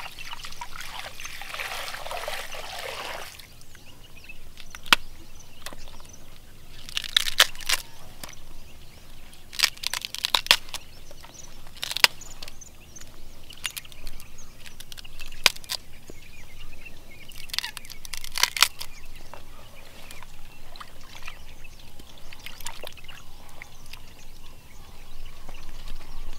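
Water pouring for about three seconds, then scattered sharp clicks and knocks, some in quick clusters, through the rest.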